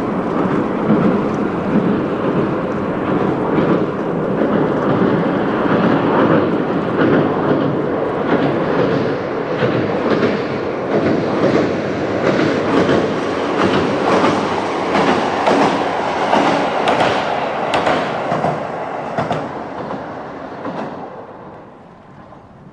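Kyoto Tango Railway KTR700 diesel railcar passing, its running noise mixed with wheels clacking over rail joints. The clacks come thickest in the second half, then the sound fades away near the end.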